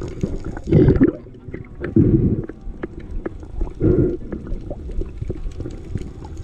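Muffled underwater sound around a spearfisher's camera: low gurgling surges about a second in, at two seconds and at four seconds, with scattered sharp clicks throughout.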